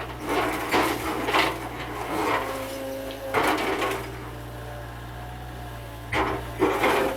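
Mini excavator demolishing a house: repeated crunching and cracking of breaking wood. The cracks come in short bursts, over a steady low hum and a machine whine that comes and goes.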